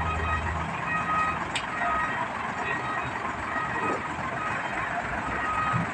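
Container-handling machine working, with a steady low engine hum and machinery noise under intermittent warning beeps.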